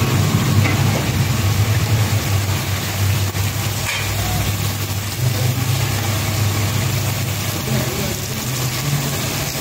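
Fish pieces deep-frying in a large wok of bubbling oil, sizzling steadily, over a steady low mechanical hum.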